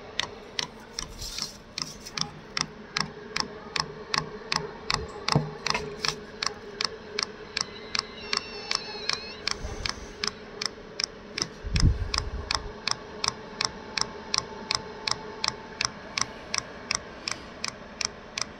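Diesel heater's electric fuel pump clicking steadily at about three clicks a second as it primes diesel slowly through the empty fuel line, over a steady hum. There is a low thump about twelve seconds in.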